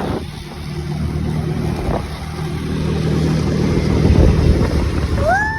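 Motorboat engine running, with wind noise on the microphone. Just before the end a steady high tone starts, gliding up quickly and then holding.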